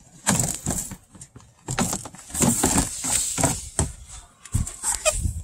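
The 2012 Mazda 5's plastic engine splash shield being pulled down and flexed, scraping and clattering in a run of irregular knocks and rustles.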